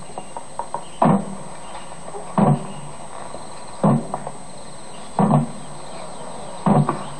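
Slow, evenly spaced muffled drum beats, five in all, about one every one and a half seconds, over a steady hiss.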